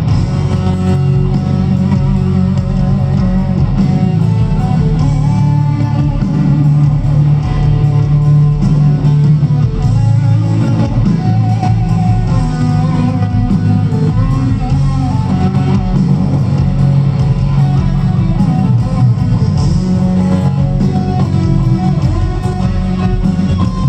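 Live rock band playing, with electric guitar leading over bass guitar in a guitar-driven passage.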